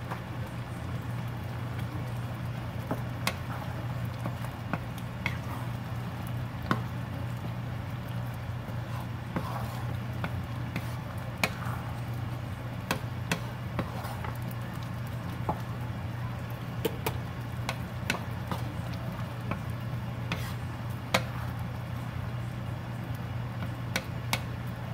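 Thick mung bean stew simmering in a frying pan, bubbling with scattered pops and clicks while a wooden spatula stirs it, over a steady low hum.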